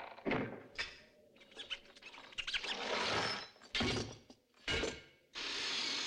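A run of sharp metallic clanks and scraping as an iron shackle and its chain drop onto a wooden floor, then an electric drill running steadily for about a second near the end.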